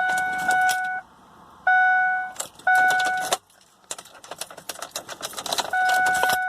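A Ford Explorer's dashboard warning chime sounds as a steady electronic tone in stretches of under a second, broken by pauses, while keys jangle and the ignition key clicks as it is turned. No starter whirr or cranking follows: the starter is not engaging at all, a fault the owner later traces to the starter.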